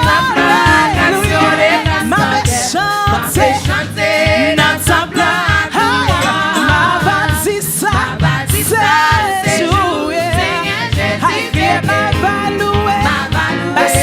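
Gospel praise song sung live, with a lead voice and backing singers over band accompaniment with a steady beat.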